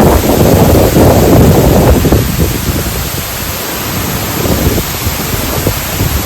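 Wind gusting through leaves and buffeting the microphone, a deep rumble under a steady rushing hiss. It is strongest in the first couple of seconds, eases off, then picks up again near the end.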